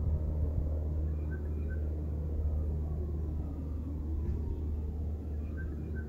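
Steady low outdoor rumble, with a few faint high chirps: two about a second in and one near the end.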